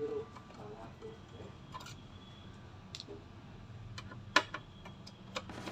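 A screwdriver and small metal and plastic parts give a few scattered light clicks and taps as screws are worked out of the all-in-one PC's internals. One sharp click about four seconds in is the loudest.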